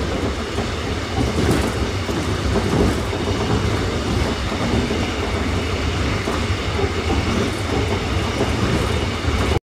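Seoul metro train running, heard from inside the passenger car: the steady running noise of the wheels on the rails and the car body.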